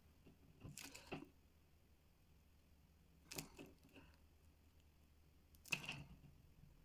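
Near silence broken by about four faint, brief rustles and scratches: a felt-tip marker stroking across plastic cling film and the film-wrapped doll being turned in the hands.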